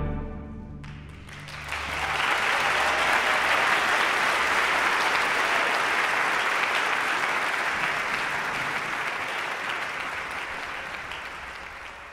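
The orchestra's final chord rings out and dies away in the hall. About a second in, the audience breaks into applause, which holds steady and then slowly fades near the end.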